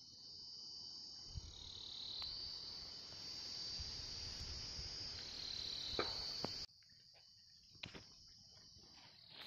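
A steady, high-pitched chorus of insects over a low rumble, with a sharp click about six seconds in. About two-thirds of the way through the level drops abruptly, and the insect chorus carries on more faintly.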